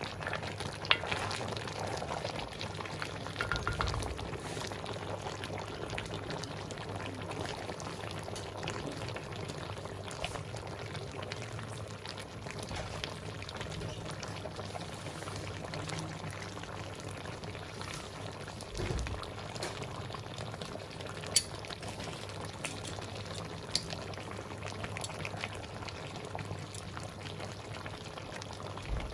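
A pot of chicken afritada stew bubbling steadily as it simmers, with a few light clicks and ticks over it.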